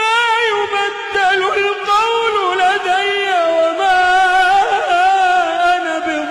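Wordless singing voice carrying a wavering, ornamented Middle Eastern-style melody over a steady held drone.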